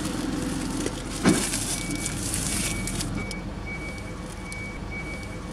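A single loud knock about a second in as the car door is opened and someone climbs out, with clothing and bag rustling. Then a high electronic beep starts repeating about one and a half times a second, over a low steady hum.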